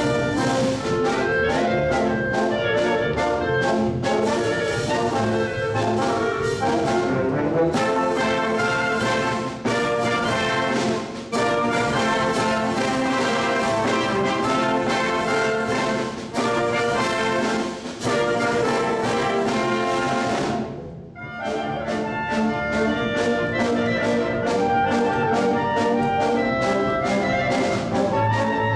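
Concert wind band playing a lively piece for two soloists and band, with brass, saxophones and a steady percussion beat. The music stops briefly about three-quarters of the way through, then resumes.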